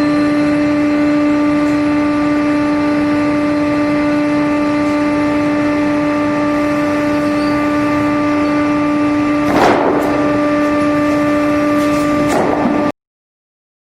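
Multi-saw circular sawmill machine running with a steady, multi-toned whine from its spinning saw blades and motors, with a brief noisy burst about nine and a half seconds in and another near the end. The sound cuts off suddenly.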